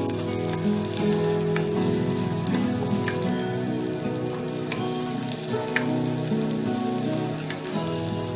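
Chopped shallots and garlic sizzling in hot oil, with scattered sharp pops. Background music with a simple melody plays over it.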